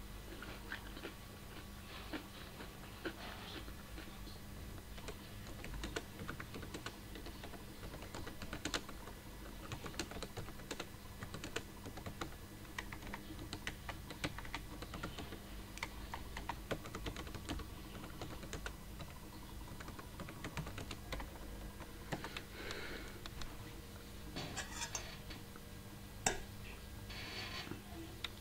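Typing on a computer keyboard: quick, irregular key clicks, with a faint steady hum underneath.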